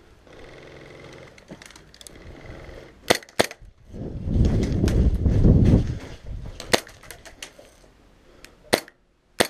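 Airsoft gunfire: sharp single cracks, two close together about three seconds in and a few more spread through the second half. A loud low rumble fills about two seconds in the middle.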